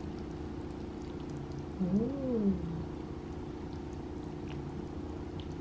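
A short hummed 'mmm' from a woman's voice, rising then falling in pitch about two seconds in, over a steady low electrical hum.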